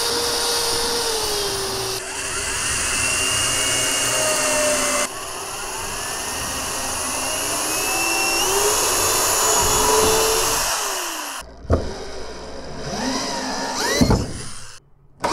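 Corded electric drill running as it bores into pine boards, its motor whine gliding up and down in pitch as the load changes. It stops about eleven seconds in, followed by a few short knocks.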